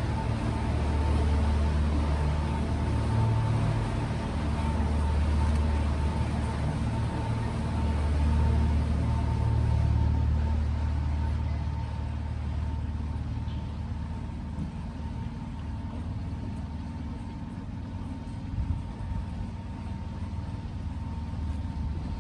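A small sightseeing boat's motor running steadily: a low drone with a faint, steady higher tone above it. It is louder for roughly the first ten seconds, then settles a little quieter.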